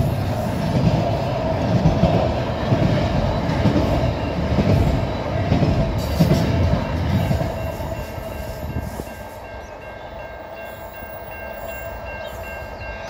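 Container wagons of an intermodal freight train rolling over a level crossing, a heavy rumble of wheels on rail that fades as the tail of the train clears about eight or nine seconds in. The crossing's warning bells keep ringing steadily after the train has passed.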